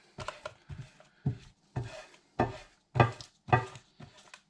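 Lard being rubbed by hand over a ridged cast iron griddle to season it: short scraping swishes, about two strokes a second.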